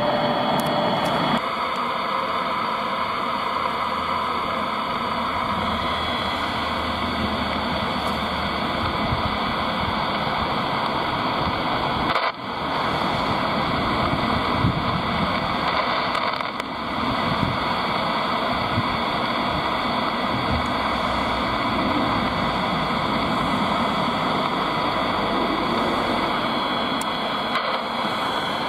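Steady hiss of static from an in-car President Lincoln ham radio transceiver, with no voice coming through, dipping briefly about twelve seconds in.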